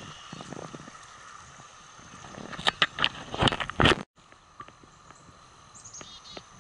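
Footsteps of a hiker walking through deep mud on a wet trail, a run of heavy steps from about two and a half seconds in that cuts off suddenly about four seconds in. A short descending bird call follows near the end over a faint outdoor background.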